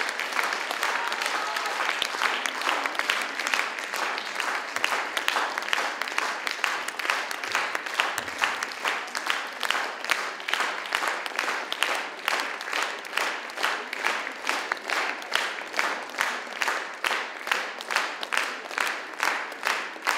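Audience applauding. The scattered clapping gradually gathers into rhythmic clapping in unison, with a steady beat over the second half.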